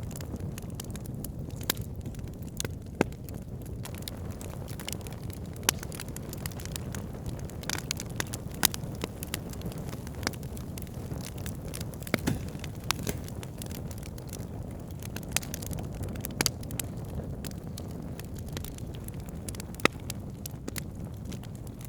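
Wood campfire burning: a steady low rumble of flames with irregular sharp crackles and pops from the burning wood.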